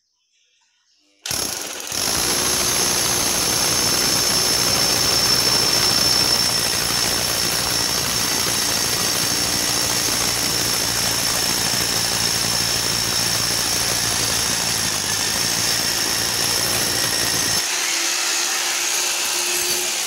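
Rotary hammer drill with a long masonry bit hammering a hole through a plastered wall, starting about a second in and running steadily. Near the end the low pounding drops out and only the higher motor noise carries on.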